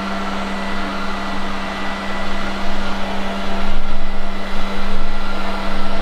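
Lefant F1 robot vacuum cleaner running on carpet: a steady motor hum with a hiss of suction. It grows louder and more uneven from about three and a half seconds in.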